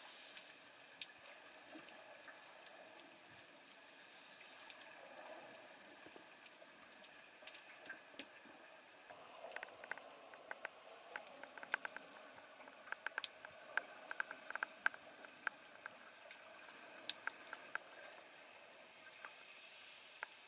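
Underwater ambience: a faint hiss with scattered sharp clicks and crackles, growing denser for several seconds in the middle.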